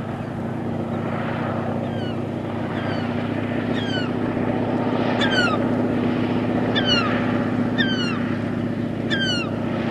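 The Pratt & Whitney R-985 nine-cylinder radial engine of a DHC-2 Beaver floatplane runs steadily as the plane skims the water on its floats after landing, growing louder as it comes closer. From about two seconds in, a bird gives short down-slurred calls, roughly one a second.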